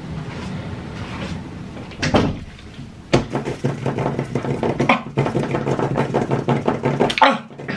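Close-miked chewing of crunchy food: many small crunches and wet mouth clicks, with a low steady hum under them through the middle seconds.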